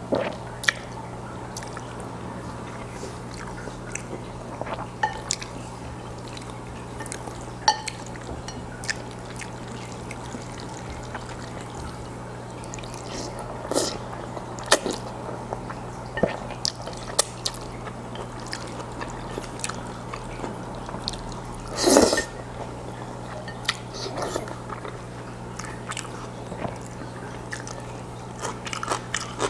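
Close-miked wet mouth sounds of a man eating black bean noodles: sparse sticky clicks and smacks of chewing, with one louder wet burst about two-thirds of the way through. A steady low hum sits underneath.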